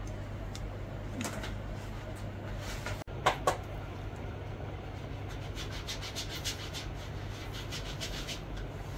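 A quick run of short sprays from a spray can held at the face, several a second, over a steady low hum; two sharp clicks come a little past a third of the way in.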